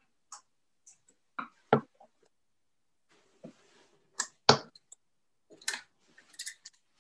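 Scattered knocks and clicks of steel-tip darts being handled and pulled out of a bristle dartboard, with two sharper knocks, one a little under two seconds in and one about four and a half seconds in.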